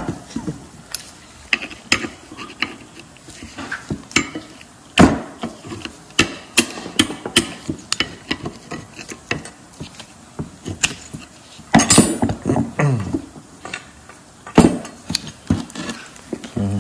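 Metal clanks and clicks as a steel front brake caliper bracket is handled and clamped in a bench vise, with scattered knocks and one short scrape. The loudest knocks come about five seconds in and again near twelve and fourteen and a half seconds.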